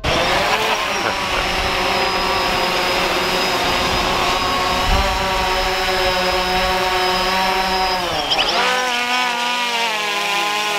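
DJI Phantom 3 Special Edition quadcopter's propellers whining steadily as it hovers close by. About eight seconds in, the whine drops and wavers as the drone is caught by hand and held with its rotors still spinning.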